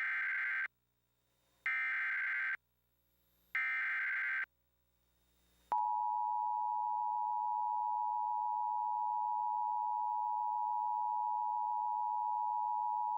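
Emergency Alert System activation: three short bursts of harsh SAME header data, roughly two seconds apart, then the steady EAS two-tone attention signal starts about six seconds in. It is the alert heralding a severe thunderstorm warning.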